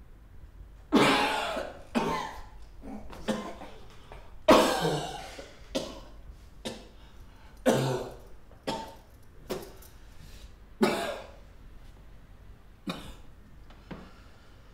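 A man coughing hard, about a dozen harsh, hacking coughs at irregular intervals, growing weaker toward the end.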